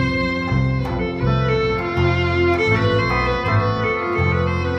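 Live band music: a violin plays a held, wavering melody over a guitar beating out deep notes in regular pulses.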